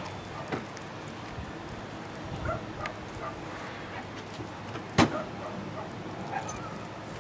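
A car's driver door being handled and opened, with latch and handle clicks and a sharp clack about five seconds in. A dog barks faintly now and then.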